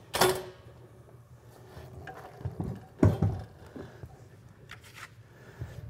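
Handling knocks from a switched-off belt floor sander: a sharp clack with a brief ring just after the start, then a duller knock about three seconds in, with a few faint ticks between.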